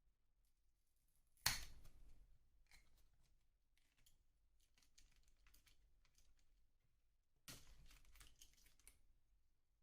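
Small parts being handled during disassembly of an RC car: a sharp knock about a second and a half in, scattered light clicks, then a quick run of clicking and rattling near the end.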